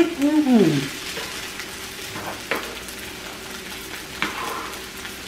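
Food sizzling steadily on a hot tabletop Lao barbecue grill, with a few sharp clicks. A person's short voiced 'mmm' comes at the very start.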